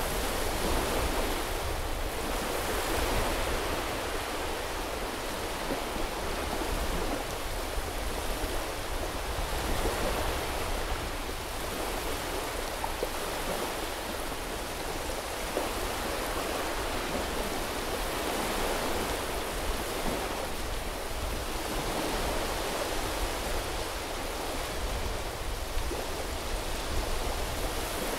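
Small waves washing onto a beach: a steady rush of surf that swells every few seconds as each wave breaks and draws back.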